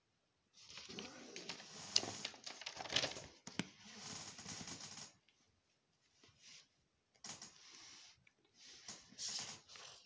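Paper and handling noise: magazine pages rustling as they are handled and turned, with a few sharp clicks. A long rustle fills the first half, then shorter rustles come twice near the end.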